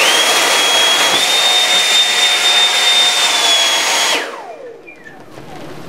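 Battery-powered electric fan of a prototype Black Diamond JetForce avalanche airbag spinning up with a quickly rising whine, then running at a steady high whine over a loud rush of air as it inflates the airbag. A little after four seconds it shuts off and the whine falls away as the fan spins down.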